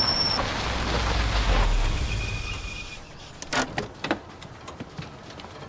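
A red Pazhan four-by-four's engine rumbling low as it pulls up, swelling and then dying away about three seconds in. A few sharp clicks follow a moment later.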